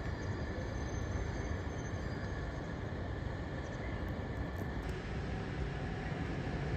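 Electric commuter train running slowly through an elevated station, heard as a steady rumble with a thin steady high tone over it.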